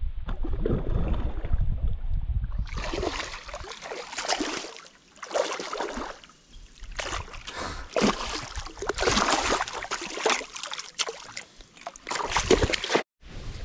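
Water splashing in repeated bursts with short pauses as a hooked sooty grunter thrashes at the surface of shallow water. A low rumble fills the first couple of seconds before the splashing starts.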